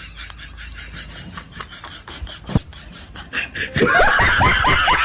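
Faint, even ticking, then just under four seconds in, a loud run of rapid, high-pitched snickering laughter, about five laughs a second.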